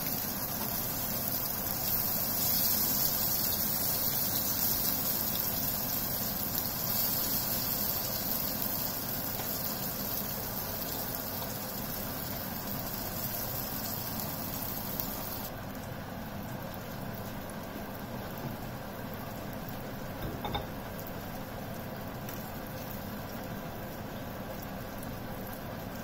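Aubergine slices sizzling steadily as they shallow-fry in hot oil in a frying pan. The hiss loses its sharp top end about halfway through and slowly eases, with one light knock in the later part.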